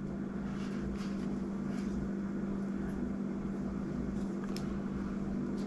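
A steady low mechanical hum with an even pitch, the kind a fan or air conditioner makes, with a couple of faint light clicks near the end as small metal and plastic reel parts are handled.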